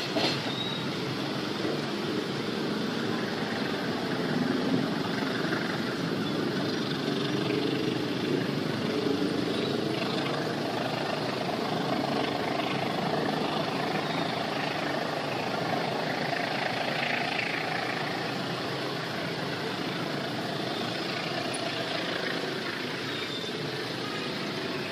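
Steady rumble of a passenger train rolling away along the track, easing slightly as it moves off near the end.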